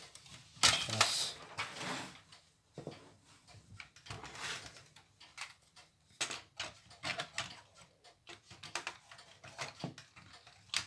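Plastic and sheet-metal parts of an opened VCR being handled and fitted: scattered clicks, knocks and rattles, with a louder clatter about a second in.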